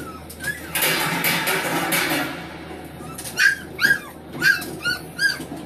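A rushing noise lasting about a second and a half, then 17-day-old Belgian Malinois puppies whimpering: five short, high cries about half a second apart.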